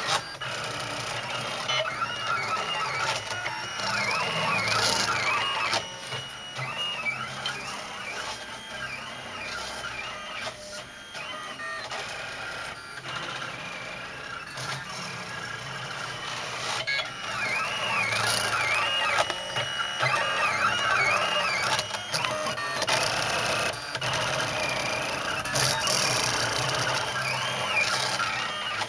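3D printer's stepper motors running as the print head moves, with a whine that rises and falls in repeated sweeps about twice a second, broken by stretches of steadier motor noise.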